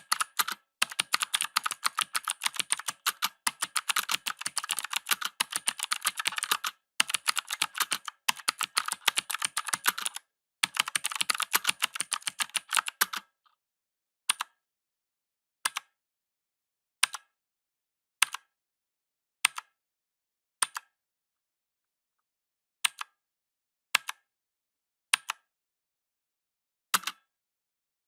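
Mechanical keyboard keys typed in fast runs of rapid clicks with brief pauses, changing about halfway through to single key presses, each a sharp click, about one every second and a quarter.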